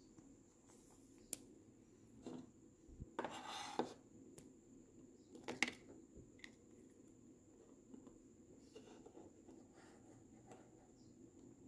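Faint handling of trading cards and plastic: a clear card sleeve rustling and a few light clicks and taps as a card is slipped in and set in a plastic display stand. The sharpest click comes about a second in, a longer rustle around three to four seconds in, another click near six seconds, and only faint rustles after that.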